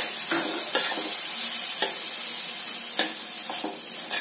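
Onion-tomato masala sizzling in oil in a stainless steel pot while a steel spoon stirs through it, the spoon scraping and tapping against the pot about once a second.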